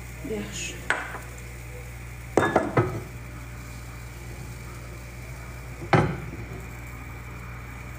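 Kitchen utensil knocking against a steel mixing bowl and frying pan while pancake batter is ladled out: a light knock about a second in, a quick cluster of knocks about two and a half seconds in, and one sharp knock near six seconds, over a steady low hum.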